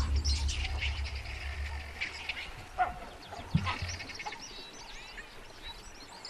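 Wild birds chirping and whistling in quick short calls, with a couple of louder single calls near the middle. A low hum fades out over the first two seconds.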